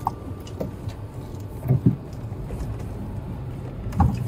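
Inside a car's cabin while it drives slowly over a rough, snowy forest road: a steady low rumble, with a few thumps as the vehicle jolts over bumps, a quick pair about two seconds in and another near the end.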